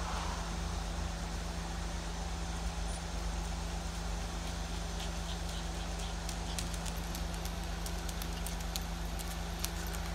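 A chihuahua's claws clicking on a wooden floor as it trots about, a quick run of light ticks in the second half, over a steady low hum.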